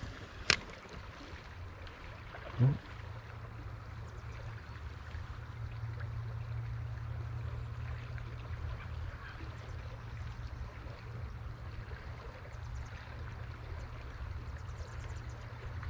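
Small creek trickling steadily. About half a second in there is a sharp click, and about two seconds later a short plop as a cast lure lands in the water.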